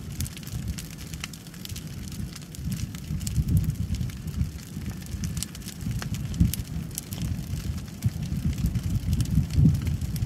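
A brush pile of dead tree limbs burning, with scattered crackles and pops over a low, uneven rumble.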